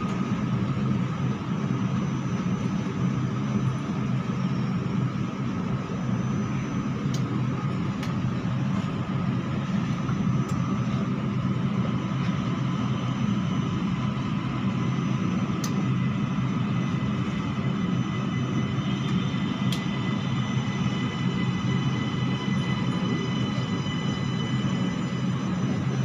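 Steady hum inside a stationary metro train car, from its air-conditioning and onboard equipment while it is held at the platform. A few faint high tones join about halfway through.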